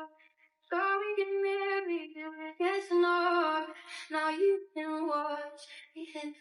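A woman's voice singing a short melody in drawn-out, held notes, phrase after phrase, with no instrument clearly underneath.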